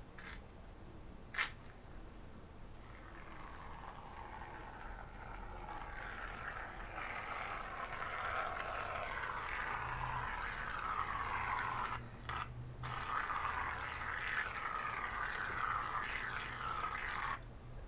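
Aerosol can of shaving cream spraying foam into a cupped hand: a long hissing, crackling spray that stops twice briefly partway through and cuts off near the end. A single sharp click comes just before it starts.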